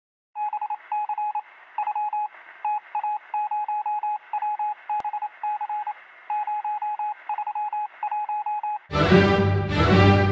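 An electronic beep tone keyed on and off in irregular short and long beeps, like Morse code, over a faint hiss. About nine seconds in, loud music comes in and drowns it out.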